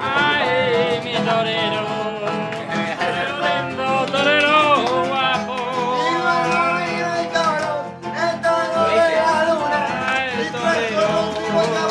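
A male voice singing a mock flamenco-style song with a wavering, ornamented melody over guitar accompaniment and hand clapping (palmas).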